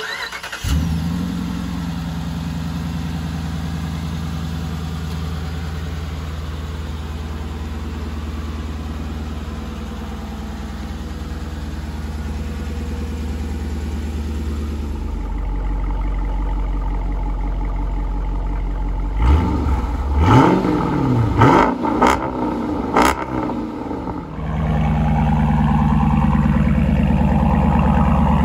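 Dodge Durango R/T's 5.7-litre HEMI V8 with a Borla Type S cat-back exhaust, starting up just after the start and then idling steadily. About two-thirds of the way in it is revved a few times, pitch rising and falling, then settles back to a steady idle that grows louder near the end as the exhaust tips come close.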